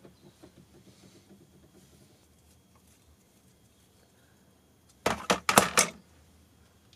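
A quick clatter of several sharp knocks and clicks about five seconds in: a screwdriver being picked up from among tools on a workbench. A few faint ticks of handling come before it.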